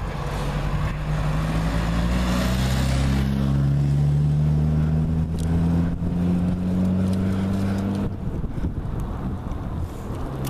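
A motor vehicle's engine running steadily underway, its pitch rising slowly for several seconds and then dropping away about eight seconds in. An oncoming van passes about two to three seconds in with a rush of engine and tyre noise.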